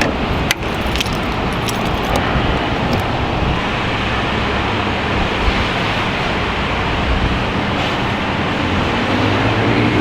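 VW Caddy Mk1 engine running, a steady, even noise with a few light clicks in the first second.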